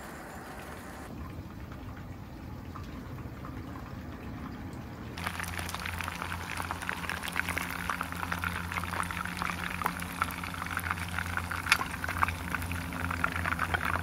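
Chicken drumsticks frying in hot oil in a pan, a dense crackling sizzle that starts suddenly about five seconds in after a quieter start.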